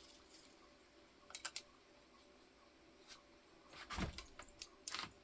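Several brief, quiet hissing spurts from a WD-40 aerosol can being sprayed onto a crossbow, spaced a second or so apart, with faint handling noise between them.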